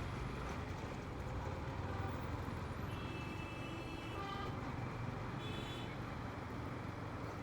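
Motorcycle engine running low and steady amid street traffic, with vehicle horns honking twice, about three seconds in and again near six seconds.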